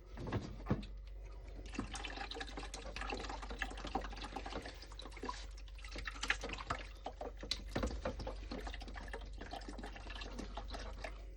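Liquid descaler being poured into a coffee machine's water tank: a steady pouring sound with irregular small splashes.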